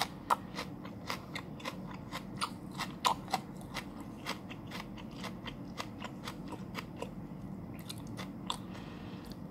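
Raw celery being chewed close to the microphone: a run of crisp, wet crunches, about three or four a second, thinning out over the last couple of seconds.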